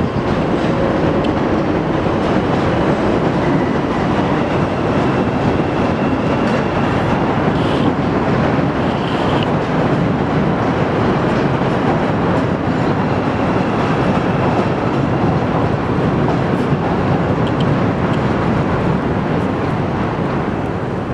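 Chicago 'L' elevated train running along its steel elevated track: a steady, loud noise of wheels on rail, with a faint high squeal now and then.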